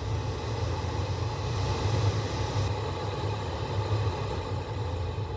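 Newly replaced cabin blower fan in a Subaru Crosstrek running steadily, a smooth whoosh of air over a low hum, with no rattle or grinding: the new blower motor has cured the clattering.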